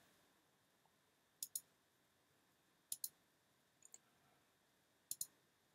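Computer mouse clicking: four short click pairs, spaced a second or more apart, in near silence.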